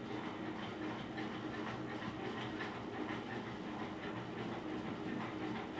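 Faint strokes of a marker on a whiteboard as a word is written, a series of short light scratches over a steady low hum.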